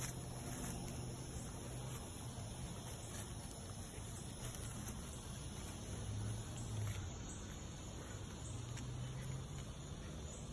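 Quiet outdoor background: a low hum that swells and fades, with faint insects chirping.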